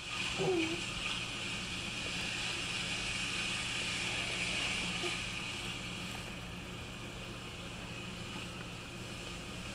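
Steady mechanical hum and hiss that is a little louder for the first few seconds, with a brief rising-and-falling vocal sound about half a second in.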